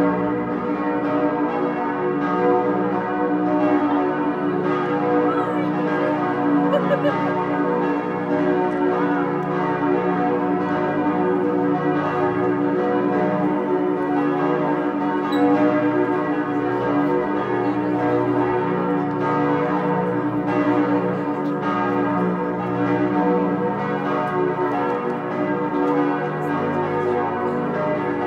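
Several church bells ringing together in a continuous peal, their many tones overlapping.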